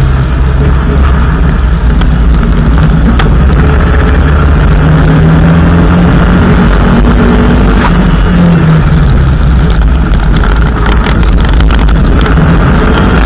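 Mitsubishi Lancer EX turbo rally car's turbocharged four-cylinder engine running hard at speed on gravel, loud, its note shifting up and down with the revs. Stones click against the car now and then, in a quick cluster near the end.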